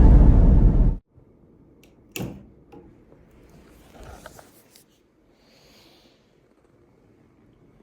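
Electronic intro music that cuts off abruptly about a second in, followed by a quiet room with one short knock and a few faint rustles.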